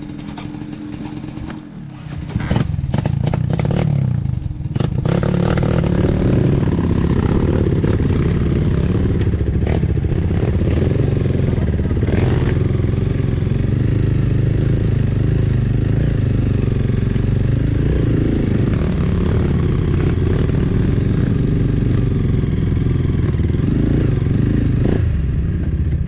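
Dirt bike engine ticking over, then revved about two seconds in as the bike pulls away and runs steadily under load up a dirt trail, with a few knocks from the bike over the ground.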